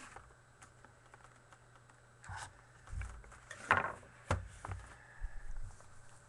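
Scattered light rustles and clicks of trading cards and packaging being handled, a few seconds apart, over a faint steady low hum.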